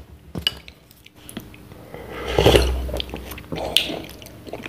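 Wooden spoon stirring and scooping curry instant noodles in a paper noodle cup: light knocks and clicks, with the loudest scraping rustle a little past halfway.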